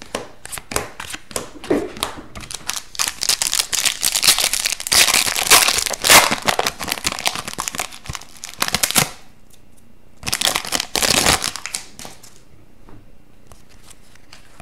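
A foil hockey card pack crinkling loudly as it is torn and peeled open by hand, in a long stretch and then a shorter second burst. Before that come a few light clicks of trading cards being handled.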